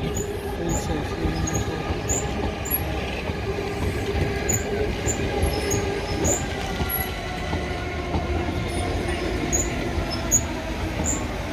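Two coupled Class 377 Electrostar electric multiple units moving slowly through the station as empty stock, a steady rumble of wheels and running gear with a faint motor hum. Short, high wheel squeaks come again and again throughout.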